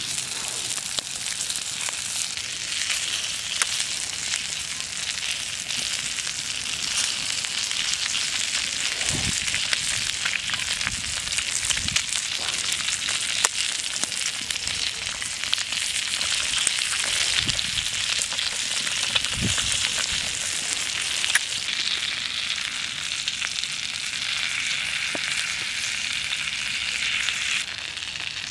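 Sausages, sliced potatoes and eggs frying in an aluminium pan, a steady sizzle with fine crackles and pops. A few dull low thumps come in the middle.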